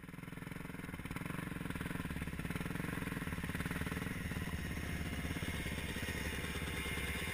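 Off-road motorcycle engines idling with a rapid, even putter, fading in over the first second or so and then holding steady.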